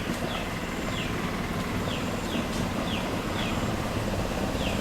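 A songbird repeating short, high, falling chirps, roughly two a second with small gaps, over a steady low rumble.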